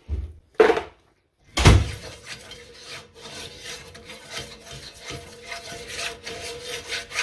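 A pepper mill grinding, a run of repeated rasping turns. It starts after a knock about one and a half seconds in.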